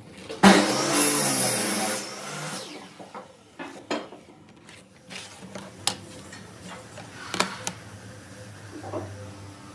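Power tool run briefly for about a second and a half, then winding down, followed by scattered knocks and clicks of wood and tools being handled.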